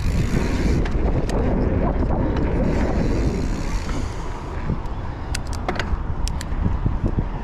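Wind buffeting the microphone and tyres rolling on concrete as a mountain bike rides through a skatepark bowl. A handful of sharp clicks and rattles from the bike come about two-thirds of the way through.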